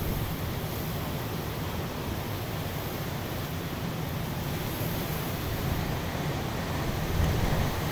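Hurricane wind and driving rain rushing steadily, with wind buffeting the microphone; the gusts swell a little about seven seconds in.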